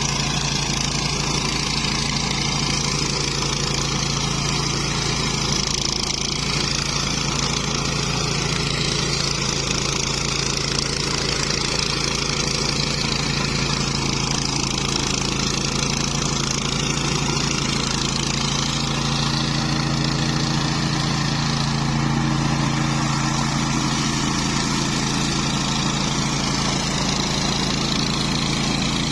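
Engine of a flail mower running steadily.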